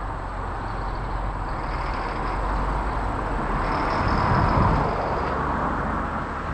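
Vehicle running with a steady rushing hum that swells about four seconds in, with a faint high whine at times.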